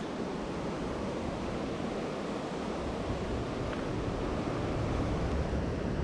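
Sea surf washing steadily against the rocks at the foot of a cliff, mixed with wind rumbling on the microphone that grows stronger in the second half.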